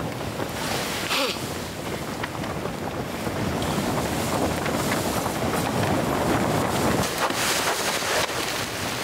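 Wind rushing steadily, a little louder in the second half, with a couple of short rustles.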